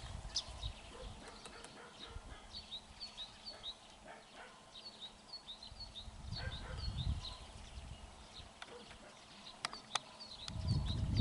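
Woodpecker pecking at dry dead wood while feeding, in a few scattered single taps, with small birds chirping over and over in the background. A low rumble comes up near the end.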